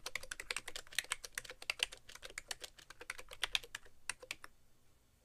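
Fast typing on a BTC 5100c mini keyboard's rubber-dome keys with sliders: a rapid run of key clacks that thins out and stops about four and a half seconds in.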